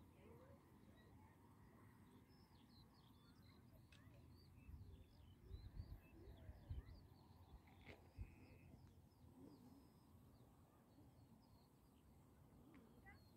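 Faint outdoor ambience: many short, high bird chirps, thickest through the middle, over a low rumble on the microphone with a few louder bumps about halfway through.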